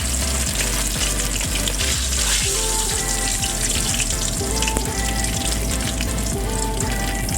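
Fish frying in hot oil: a dense, steady crackle and sizzle.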